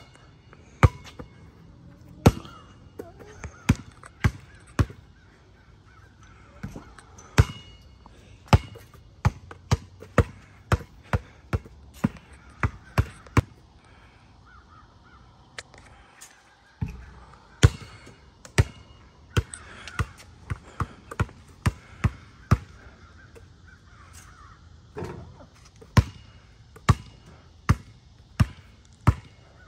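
Basketball bouncing on a concrete slab, dribbled by a seated player: sharp single thuds, often about two a second, in runs broken by short pauses.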